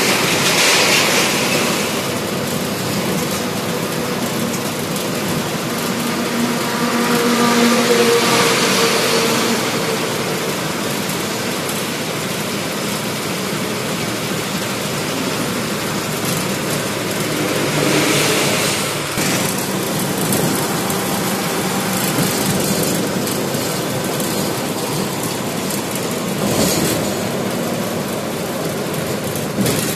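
Luxury coach bus driving at highway speed, heard from the driver's cabin: a steady mix of engine and road noise. There are a few louder swells of a second or two each, one about a quarter of the way in, one past the middle and one near the end.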